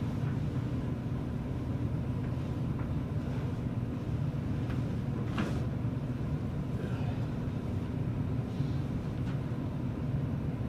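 A single crack of a joint popping under a chiropractic spinal adjustment about halfway through, with a few fainter clicks around it. A steady low room hum runs underneath.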